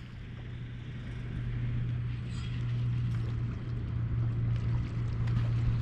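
An engine running steadily with a low, even hum, with a few faint ticks over it.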